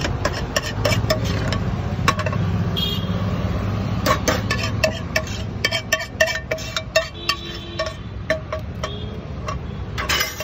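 Metal spoon scraping and clinking against a frying pan as thick egg bhurji curry is scooped out, with many sharp clinks, some ringing briefly. A steady low rumble of road traffic runs underneath.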